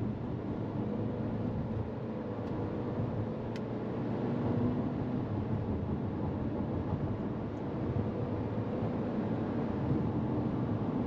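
Inside the cabin of a SsangYong Torres under acceleration: its 1.5-litre turbo petrol engine running with road noise as a steady hum, the engine note rising a little over the first few seconds.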